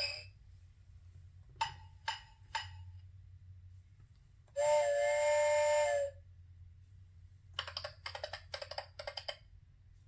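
Electronic sound effects from a children's button sound book's small speaker: three short clinks, then a steady whistle-like tone for about a second and a half, then a quick run of short pulses.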